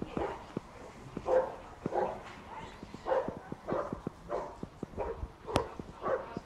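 A dog barking over and over at an even pace, a little under two barks a second, with a few sharp clicks in between, the loudest about five and a half seconds in.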